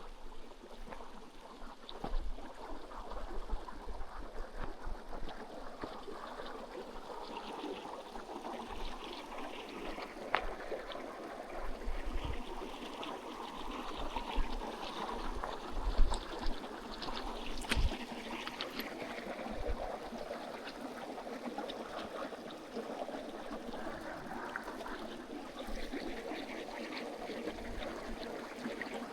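A stream running and trickling steadily, with scattered low thumps and sharp clicks; the loudest click comes about sixteen seconds in.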